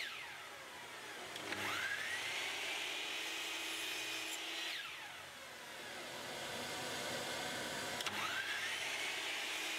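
Miter saw motor whining as it spins down, starts up again and runs, twice over during repeated crosscuts in plywood. The pitch falls about a second and a half each time it winds down and rises again on each restart.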